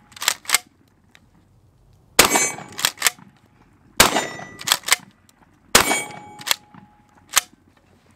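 Tristar Cobra III Marine 12-gauge pump-action shotgun fired three times with high-velocity birdshot, about two seconds apart. Each shot is followed by quick metallic clacks of the pump action cycling, its spring-loaded forend snapping back forward.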